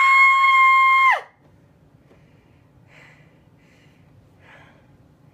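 A toddler's high-pitched squeal, sliding up, held steady for about a second and dropping away. After it there are only a few faint soft sounds.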